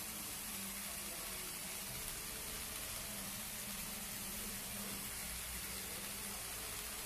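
Small electric motors and gearing of Lego WeDo 2.0 walking robots whirring faintly, a low hum that comes and goes under a steady hiss.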